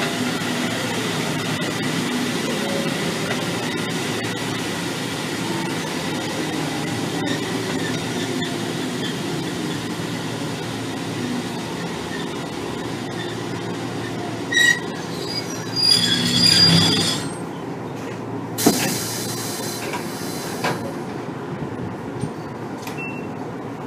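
Onboard running sound of a Kotoden 1300-series electric car (ex-Keikyu old 1000-series): steady wheel-on-rail rumble that slowly eases off. About 15 to 17 seconds in, the wheel flanges squeal in several high-pitched bursts on a curve, and a short burst of hiss follows a couple of seconds later.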